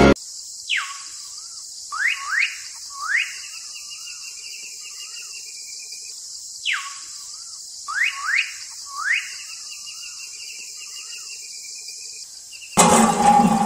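A bird's whistled song phrase: a falling whistle, two quick rising whistles, then a rising whistle running into a wavering trill, heard twice about six seconds apart over a steady high hiss. Music comes back in near the end.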